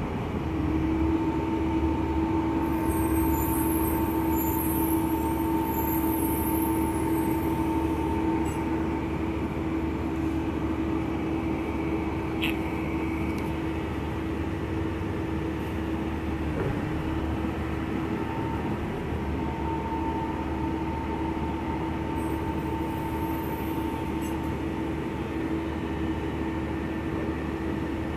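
City transit bus interior while riding: a steady drivetrain hum with a constant whining tone over rumbling road noise, and a single brief click about halfway through.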